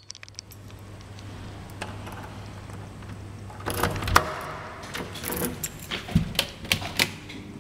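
Keys jangling and a door being unlocked and opened: a run of sharp metallic clicks and knocks through the second half, over a low steady hum.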